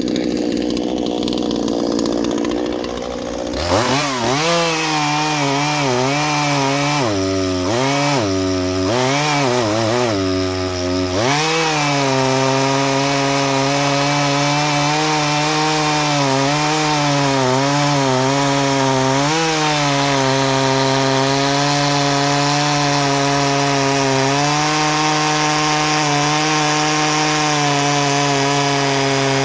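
Small two-stroke chainsaw, a Husqvarna 236 X-Torq, revved up a few seconds in and blipped up and down several times. It then settles at full throttle cutting hardwood, its pitch dipping slightly under load.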